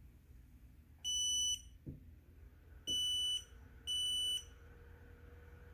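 Creality laser engraver's buzzer beeping three times at power-on, each a high, steady electronic beep of about half a second. A faint steady hum starts with the second beep.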